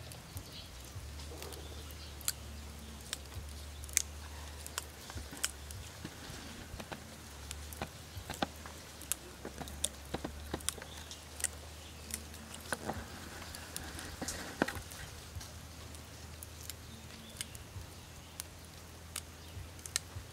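Green vegetable stems being snapped and stripped by hand: irregular crisp snaps, several a second, with leafy rustling, over a steady low hum.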